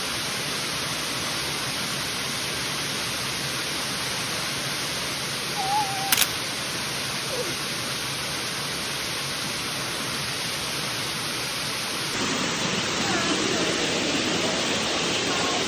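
Steady rushing of a waterfall close by, running full after days of rain. A single sharp click about six seconds in, and the rush grows a little louder from about twelve seconds on.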